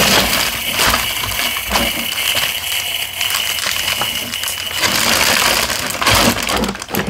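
Loose plastic Lego bricks clattering and rattling against each other inside a plastic zip-top bag as it is handled and pressed shut, with the bag crinkling.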